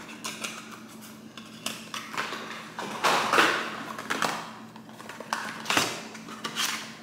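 Rustling and light knocks of small packaging and products being handled, in irregular bursts, loudest around the middle, over a faint steady hum.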